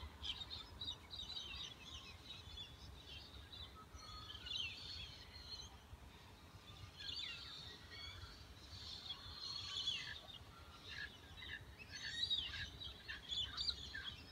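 Dawn chorus of many birds chirping and calling over one another, with short sweeping calls coming in clusters throughout, over a faint low steady hum.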